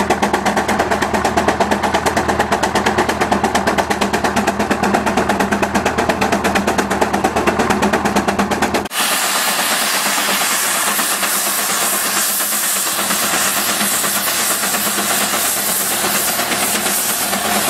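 Steam traction engine working hard under a plow load, its exhaust beating in a rapid, even chuff. About nine seconds in this gives way abruptly to a steady hiss of steam from an Advance steam traction engine.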